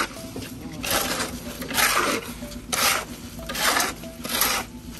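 Steel shovel and hoe scraping through wet, soupy concrete mix on a hard surface: about five scraping strokes, roughly one a second.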